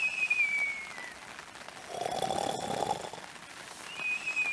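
A person doing a pretend cartoon snore: a whistle falling in pitch, then a rasping snore about two seconds in, then the falling whistle again near the end.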